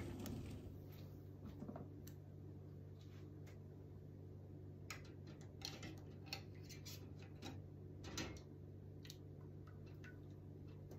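Faint, scattered ticks and small pops from the metal lids of home-canned pint jars sealing as they cool after the water bath, over a steady low hum.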